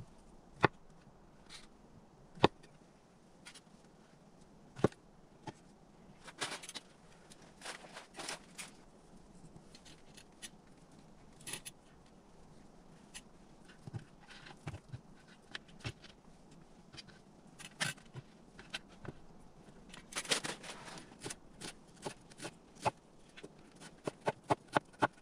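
Sharp knocks and clicks of objects being handled, spaced out at first, three of them loud, then a quick run of taps near the end.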